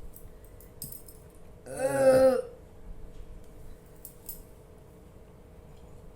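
One loud, drawn-out burp about two seconds in, lasting under a second, brought up by gulping carbonated Thums Up cola. A few faint clicks come before and after it.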